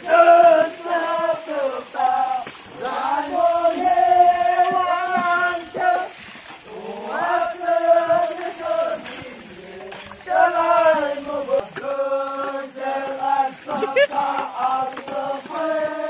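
Male voices singing a chant-like song without instruments, with long held notes.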